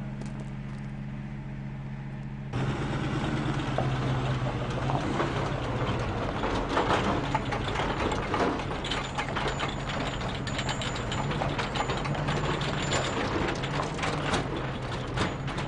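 Steady engine hum. About two and a half seconds in it gives way to a louder truck engine running with a constant metallic clatter and rattling from the towed bomb trailers.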